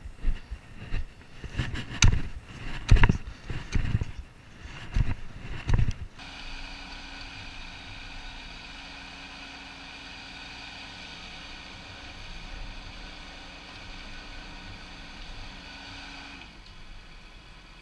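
Tracked dumper's engine running under a clatter of irregular jolts and knocks as it crawls over rough dirt. It then gives way to a steady machine hum with a constant whine from the working mini excavator, which cuts off abruptly near the end.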